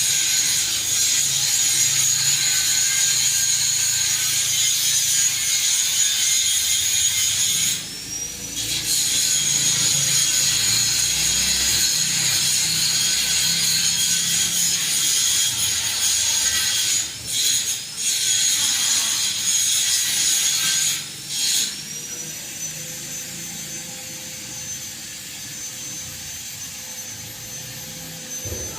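Panasonic F-560Z2 industrial ceiling fan running with a steady motor whine and hum, under a loud rasping hiss. The hiss breaks off abruptly several times and stops about two-thirds of the way in, leaving the quieter, steady whine of the fan.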